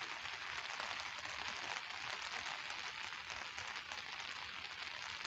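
Steady rain falling, a dense, even hiss of many small drops.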